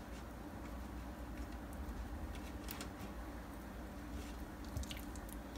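Raw chicken breast pieces being picked up and pressed down onto the plastic mesh of a dehydrator tray: soft, wet handling sounds with scattered small clicks over a steady low hum.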